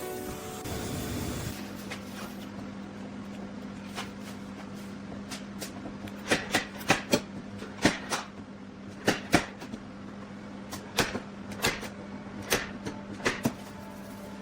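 Irregular sharp clicks and knocks, a dozen or more, mostly in the second half, over a steady low hum.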